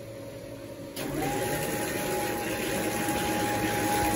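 Workshop production machinery running with a steady mechanical hum. About a second in it gets louder and a steady high whine joins it.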